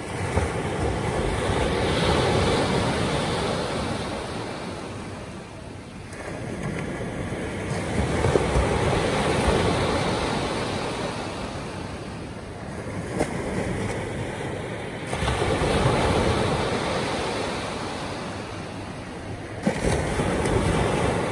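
Small surf breaking and washing up a shelly beach. Four waves surge and fall back, about every six to seven seconds.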